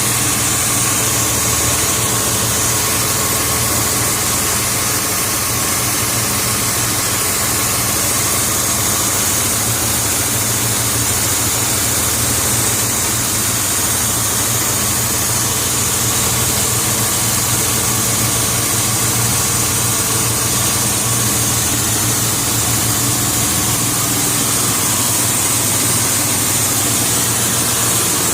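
Engine-driven air compressor running steadily, a constant even drone.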